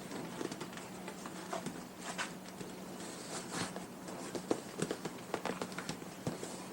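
Scattered light rustles, taps and small knocks of stretchy seat-cover material being pulled and handled over a motorcycle seat, over a faint steady hum.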